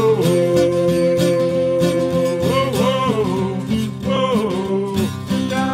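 Acoustic guitars strummed under male singing: a long sung note is held for about two seconds from near the start, followed by more short sung phrases.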